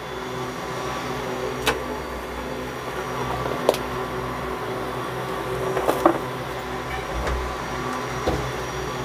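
A steady mechanical hum with a few light clicks and taps scattered through it.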